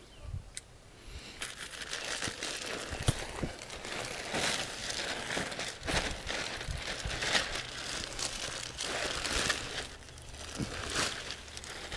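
Plastic bag of black mulch crinkling and crackling as it is handled and emptied, the mulch spilling out onto the ground. It starts about a second and a half in and then goes on with irregular sharp crackles.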